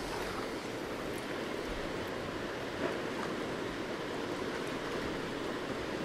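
Steady wash of sea and wind around a small boat, with a single faint click about three seconds in.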